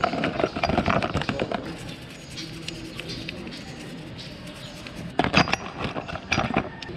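Wet scrubbing and handling sounds from hands, a rag and a toothbrush worked in a plastic bucket of cleaning liquid. The strokes come in a burst at the start and another about five seconds in, with a quieter stretch between.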